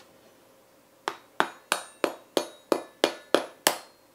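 A knife tapping nine times, about three a second, on the hard, crunchy crackling skin of a roast pork shoulder. Each tap is a sharp knock with a short ring, showing how hard and crisp the roasted skin has become.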